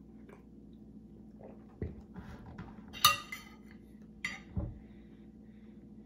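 Tableware clinking and knocking at a meal: a dull knock, then a sharp ringing clink about three seconds in (the loudest), and a second clink followed by a dull knock on the table just over a second later.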